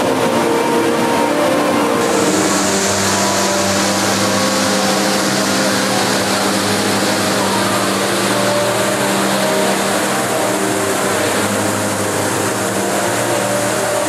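Steady rushing roar of the Rain Vortex, a large indoor waterfall, with a low hum of sustained tones underneath.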